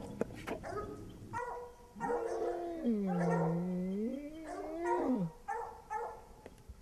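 Black bear moaning: one long call of about three seconds that rises, dips in pitch in the middle and falls away at the end, with shorter whines before and after it. This is a subordinate moan, the bear signalling that it wants the intruder gone and does not want to fight.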